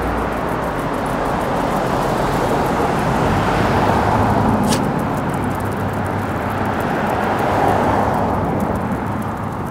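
Road traffic: cars passing on a town street, a steady rush of tyre and engine noise that swells as vehicles go by, about four and again about eight seconds in.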